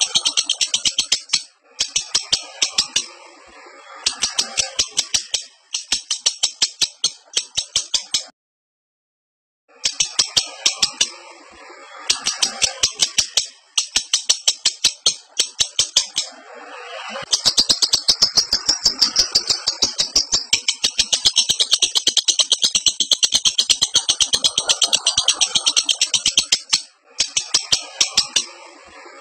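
Lovebird in breeding condition chattering: rapid strings of sharp, high-pitched ticking notes in bouts of a second or two, broken by a second of silence about a third of the way in, then one unbroken run of about ten seconds in the second half.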